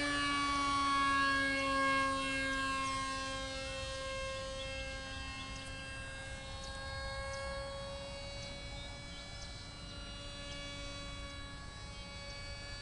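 Humming drone of a kite hummer on an F-117-shaped kite singing in the wind: one steady tone with many overtones, its pitch slowly sagging and wavering, growing a little fainter after a few seconds.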